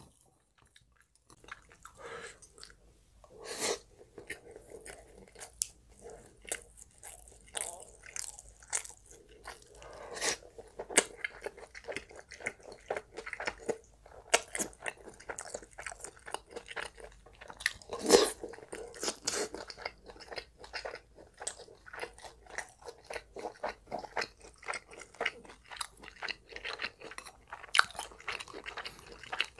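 Close-miked chewing and biting of spicy stir-fried pork (jeyuk-bokkeum) and rice, full of short wet mouth clicks, with a few louder bites.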